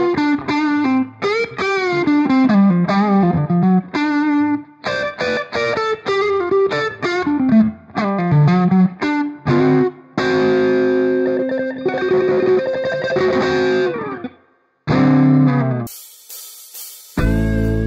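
Electric guitar played through a Strymon Flint V2 reverb and tremolo pedal: single-note melodic lines with bends and slides, then sustained chords. A brief hiss about 16 s in is followed by a fuller, deeper chord near the end.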